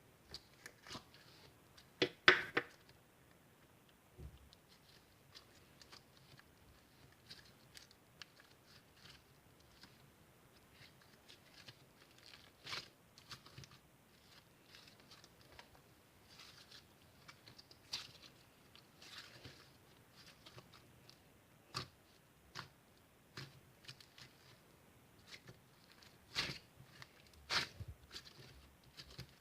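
Small objects being handled on a desk: scattered light taps and clicks with short bouts of paper-like rustling and tearing. The sharpest tap comes about two seconds in.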